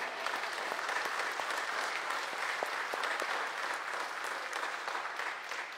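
Congregation applauding: a steady round of many people clapping.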